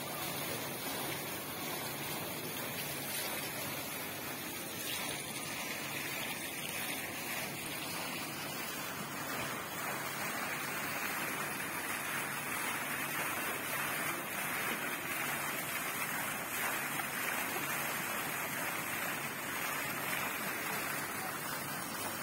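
Fountain splashing: a tall jet of water falling back into its pool in a steady rush, a little louder from about nine seconds in.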